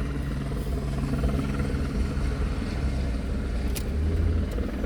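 Car moving, heard from inside the cabin: a steady low engine hum and road rumble, with a faint click near the end.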